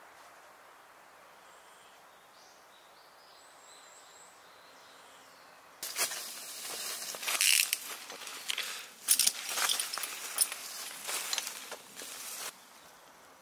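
Dry fallen leaves on a forest floor crunching and rustling in loud, irregular bursts from about six seconds in, lasting some six seconds. Before that there is only quiet woodland ambience with a few faint high chirps.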